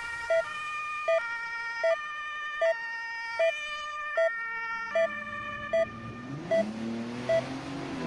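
Electronic intro music of held synth chords with a short, sharp heart-monitor-style beep about every three-quarters of a second. A siren-like wailing tone comes in and rises in pitch near the end.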